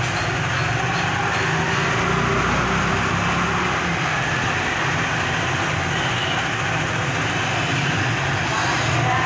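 Busy street traffic: motorcycle and motor-rickshaw engines running together in a steady, continuous mix.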